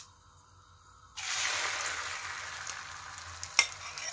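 Beaten egg with chopped onion poured into hot oil in a nonstick frying pan, sizzling suddenly about a second in. The sizzle is loudest at first and slowly eases, with a couple of sharp clicks near the end.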